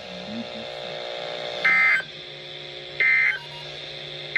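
NOAA Weather Radio SAME end-of-message code played through a weather radio's speaker: short, harsh digital data bursts about a second and a half apart, two of them plus the start of a third, marking the end of the severe thunderstorm warning.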